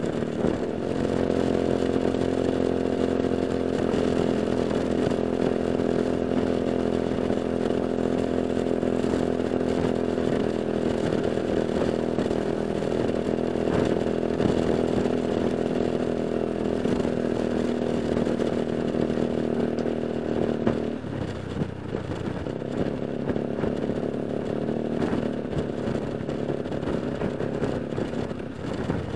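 Motor scooter engine running steadily at cruising speed, picked up through a helmet intercom mic that keeps out most of the wind noise. About two-thirds of the way through the engine note drops off as the throttle eases, then it builds again near the end.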